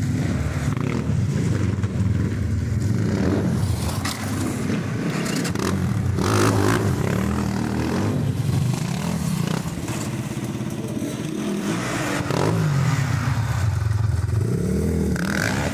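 A car engine running and being revved, its pitch rising and falling several times, with some scraping and clattering noise over it.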